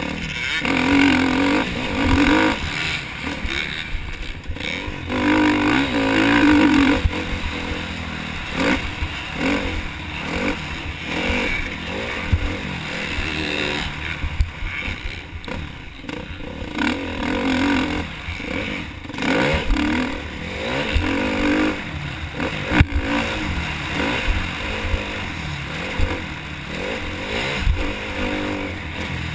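Motocross bike engine heard from a helmet camera, revving up hard and backing off again and again as the rider accelerates out of corners and up the track, with wind rumble on the microphone.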